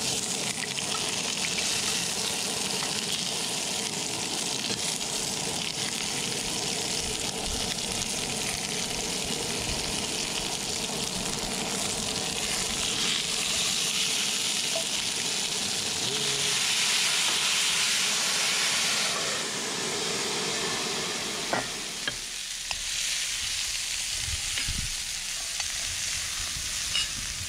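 Tuna steaks and asparagus searing in a hot cast iron skillet: a steady frying sizzle. Near the end the sizzle thins and a few light clicks come through.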